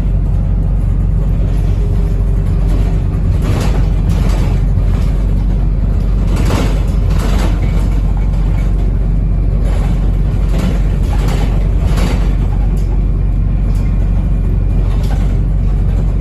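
Wrightbus New Routemaster hybrid double-decker bus running, heard from inside: a steady low rumble from the drivetrain and road, with occasional knocks and rattles from the body.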